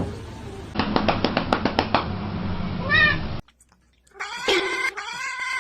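Cats meowing: a short meow about three seconds in over a quick run of clicks, then after a brief silent gap a long, drawn-out yowling meow.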